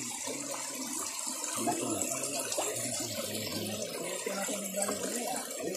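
Steady rushing of flowing river water, with faint voices in the background.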